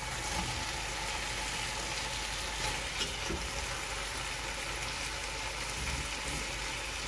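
Chicken arrabbiata tomato sauce sizzling steadily in a pot as boiled pasta is tipped in, with a few light knocks.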